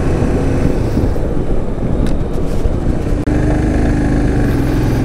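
Royal Enfield Himalayan's single-cylinder engine running at cruising speed, with wind rushing over the microphone. The sound drops out for an instant a little over three seconds in.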